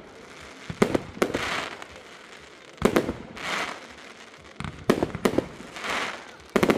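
Aerial fireworks shells bursting: about half a dozen sharp bangs, every second or two, each followed by a brief crackling hiss.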